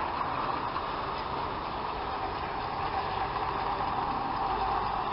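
Battery-powered Gauge 3 model GWR 2021 class pannier tank locomotive running along garden track: a steady whine of its electric motor and gears with the rolling of its wheels on the rails, growing a little louder near the end as it approaches.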